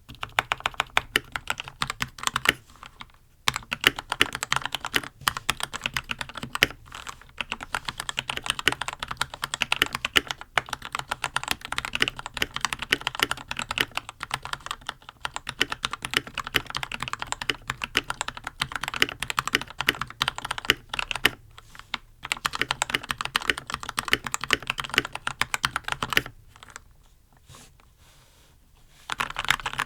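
Red Dragon Kumara mechanical keyboard with lubed Gateron Red linear switches and stock ABS keycaps, resting on a desk pad, being typed on in a rapid, steady patter of keystrokes. The typing pauses for a few seconds near the end, then resumes.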